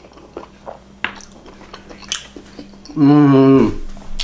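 Chewing a soft takoyaki ball, with small wet mouth clicks. About three seconds in comes a loud hummed 'mmm' of enjoyment that dips in pitch as it ends.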